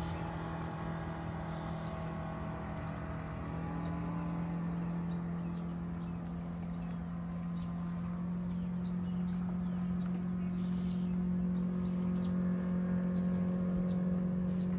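A steady low motor hum that gets a little louder toward the end, with short high chirps scattered over it.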